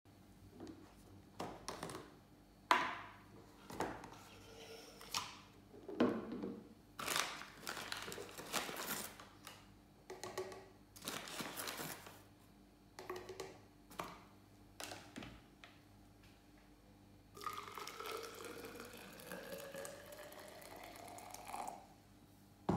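Clicks and knocks of a plastic portable French press being taken apart and ground coffee scooped into it, then, about three-quarters of the way through, hot water poured from a kettle into the press for about four seconds, its pitch rising as it fills.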